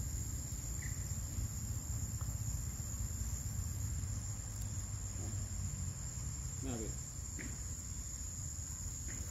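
Insects, crickets or cicadas, keeping up a continuous high-pitched drone over a steady low rumble, with a few faint short calls about two-thirds of the way through.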